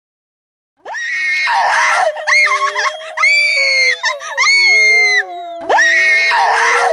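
Several voices screaming together as a horror sound effect, with a lower moaning tone held beneath them. The screaming starts suddenly about a second in, dips briefly near five seconds, then starts up again.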